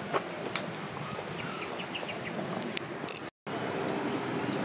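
Insects droning steadily at a high pitch over outdoor background noise, cut off by a brief dropout about three and a half seconds in before resuming.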